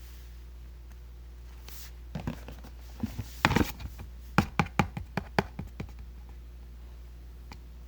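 Hands handling a toy and its packaging: a quick run of sharp clicks and taps, about a dozen, between two and six seconds in, the loudest in a cluster near the middle.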